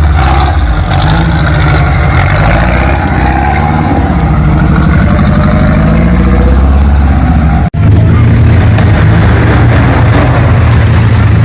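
Off-road vehicle engine revving hard under load, its pitch rising and falling. About eight seconds in the sound breaks off for an instant and a steadier engine drone follows.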